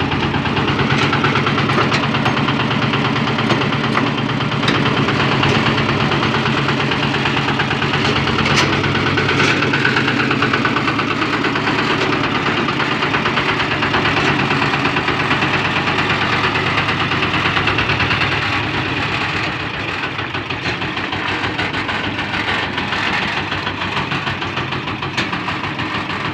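An engine running steadily with a rapid, even pulse. It gets a little quieter about eighteen seconds in.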